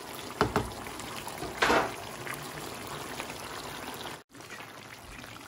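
Chicken asado stew simmering in a nonstick wok, a steady bubbling in the sauce, with a couple of light clicks about half a second in and a short louder noise near two seconds in. The sound drops out for an instant about four seconds in.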